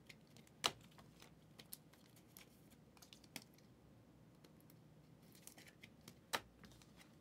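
Near silence with faint scattered clicks and taps, and two sharper clicks, one under a second in and one near the end.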